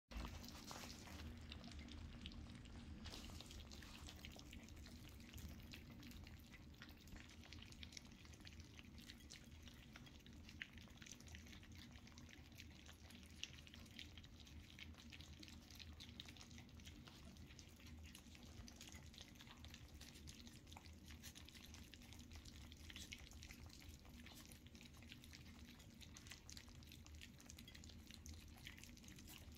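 Faint wet lapping and smacking of a litter of dachshund puppies eating soft puppy mousse from a shared plate: many small irregular clicks over a low steady hum.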